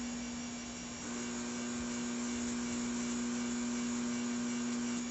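Autool LM706 refrigerant filling machine humming steadily in its supplying mode without ever getting going, which the owner takes for a machine that does not work. The hum softens for about a second near the start, then comes back.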